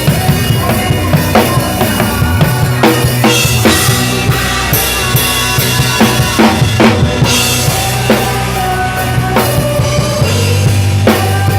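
Drum kit played along with worship music, with frequent bass drum and snare hits over other instruments holding steady notes.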